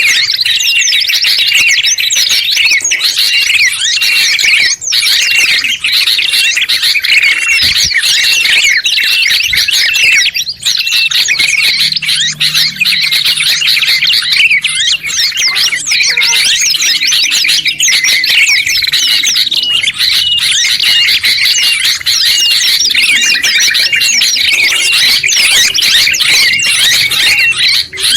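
Several songbirds singing at once in a dense, unbroken chorus of rapid high chirps, trills and short repeated whistles. The mix is a birdsong master recording combining yellow-vented bulbul (trucuk), sooty-headed bulbul (kutilang), white-eye (pleci) and prenjak.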